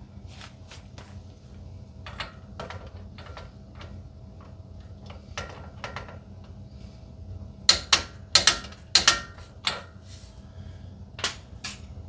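Metal hand tools clicking and clacking as a long-handled wrench works the nuts on a truck's front suspension knuckle. The clicks come irregularly, with a quick run of the loudest ones about eight to nine seconds in and another near the end, over a faint steady hum.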